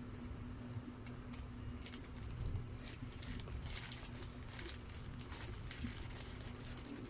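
Close-miked paper burger wrapper crinkling, with many small crackles and clicks as a burger is held and pressed on it. The crackling is thickest in the middle, over a faint steady hum.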